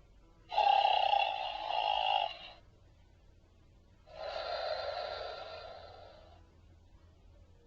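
A toy's electronic voice box playing a recorded snore, twice. The first snore lasts about two seconds, and after a pause the second one fades away.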